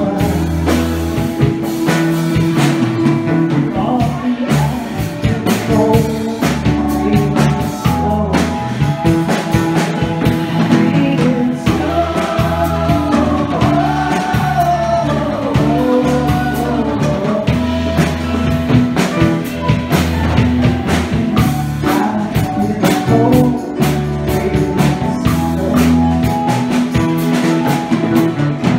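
Live rock band playing with sung vocals over electric bass, drums and percussion.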